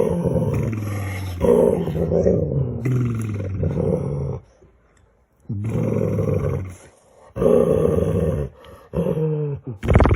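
A dog making drawn-out vocal noises in reply to its owner, about six long pitched calls separated by short pauses, with a longer quiet gap a little before the middle.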